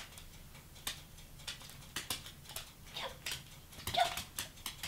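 A small dog's claws clicking and tapping on a hardwood floor as it hops on its hind legs, in an uneven run of sharp ticks. Two brief squeaks come about three and four seconds in.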